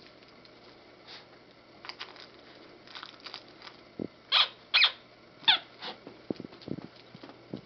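Miniature dachshund rummaging in a toy box, toys knocking and clattering. About halfway through come three short high-pitched yips, the last falling in pitch.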